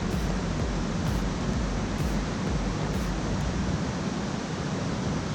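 Steady rush of water from a large Mekong River waterfall: a dense, even noise.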